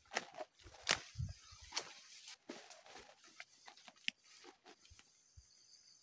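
Footsteps pushing through forest undergrowth, dry leaves and twigs crackling and snapping for the first couple of seconds, then only a few light rustles as the walker stops and crouches. Near the end a steady high insect drone sets in.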